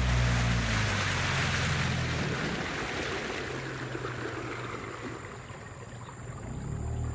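Water rushing and wind on the microphone from a small boat moving along a muddy river, the sound fading over several seconds. A low hum at the start dies away within about two seconds and comes back near the end.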